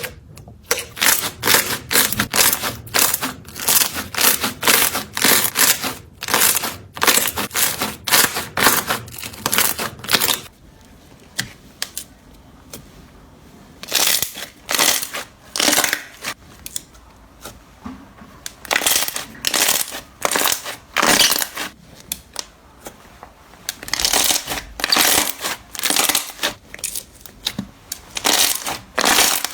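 Slime being squeezed and pressed by hand, giving dense runs of crackling clicks and pops in bursts. They thin out in the middle and pick up again near the end.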